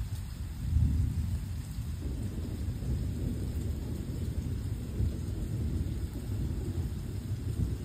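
Thunder rumbling in a thunderstorm, swelling louder about a second in and then rolling on steadily, with rain falling.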